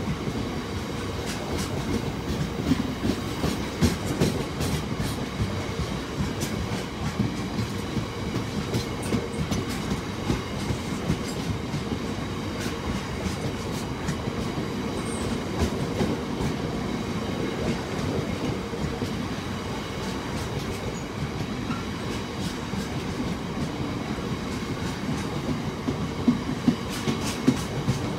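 Freight train of loaded covered hopper wagons rolling past, a continuous rumble with wheels clattering over rail joints. A few sharper clanks come near the end.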